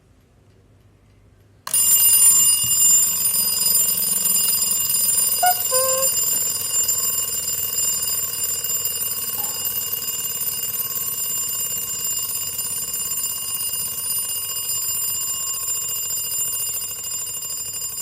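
Chinese 'pecking chicken' wind-up alarm clock going off: its alarm bell starts suddenly about two seconds in and rings loud and steady without a break.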